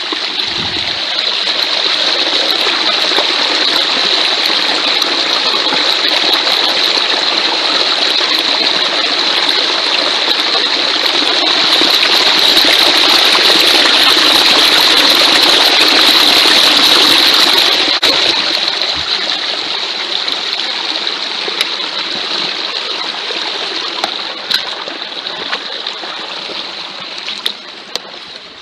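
Shallow stream spilling fast over rocks and sticks in a small cascade, a steady rush of water close to the microphone. It grows a little louder towards the middle, then fades gradually over the last third, with a few sharp clicks near the end.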